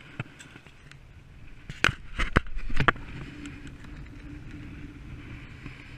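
Handling noise of someone climbing out of a fabric ice-fishing shelter onto snow: a quick cluster of sharp knocks and rustles about two seconds in, then a steady low rumble.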